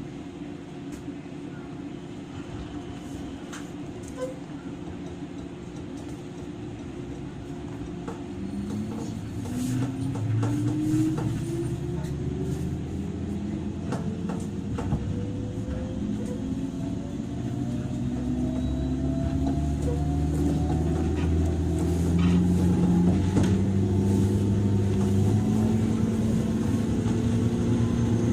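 JR 103 series electric train's traction motors, heard from inside motor car MoHa 103-773. A steady low hum runs for the first eight seconds or so, then the train accelerates: a whine of several tones climbs steadily in pitch and grows louder, with scattered clicks over it.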